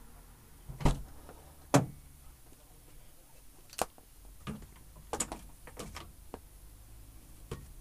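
Two loud thumps, about a second apart near the start, then a scatter of lighter clicks and taps inside a stationary rally car's cabin.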